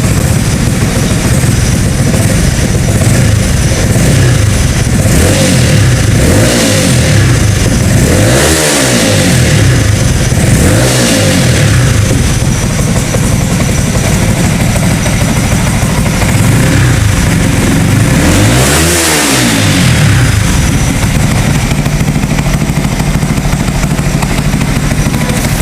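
Rebuilt Yamaha R15 V3's 155 cc single-cylinder engine running loudly and steadily, its tone sweeping up and down a few times.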